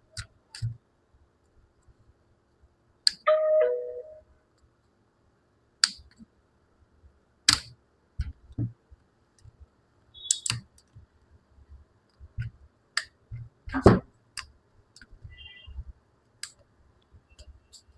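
Sparse, irregular clicks and light taps of plastic parts and a small metal tool as a Realme C55 smartphone's middle frame is pried loose and the phone taken apart, with the loudest snap about fourteen seconds in.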